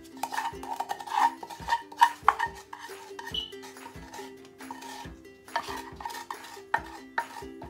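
Wooden spatula scraping and knocking against a small nonstick saucepan as thick caramel is scraped out into a cake tin, with a few sharper knocks about two seconds in. Background music with a steady beat plays underneath.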